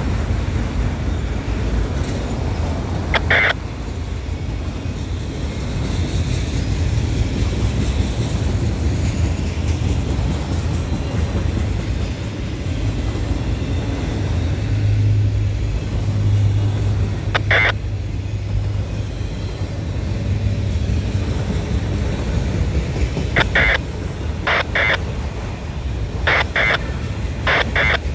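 Freight train of autorack cars rolling steadily past: a continuous low rumble of steel wheels on rail. Short sharp clicks cut through it once about three seconds in, once midway, and several times in quick succession near the end.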